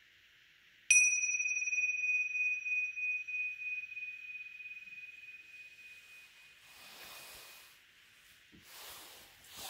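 Tingsha cymbals struck together once, about a second in, ringing with one clear high tone that slowly fades over several seconds. Soft handling noise near the end as they are moved.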